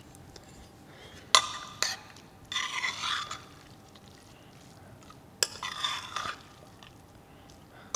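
A steel spoon stirring and scooping cooked broken-wheat pulao in a pressure cooker: a sharp clink of the spoon against the pot about a second and a half in and again past five seconds, each followed by about a second of soft scraping through the grains.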